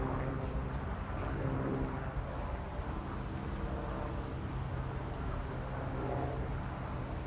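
Outdoor ambience: a steady low mechanical hum, with a few short high chirps over it.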